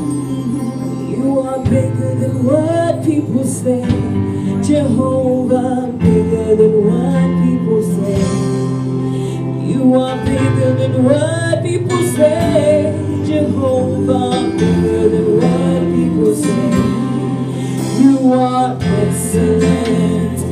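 Live gospel worship music: keyboard and guitar playing a slow song while women sing into microphones.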